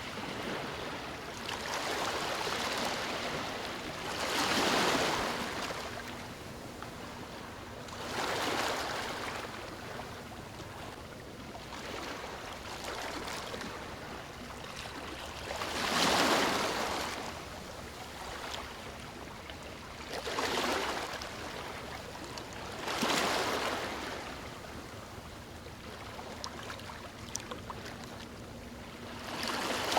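Sea waves breaking and washing up the shore, with six swells that each rise and fade, the loudest about halfway through.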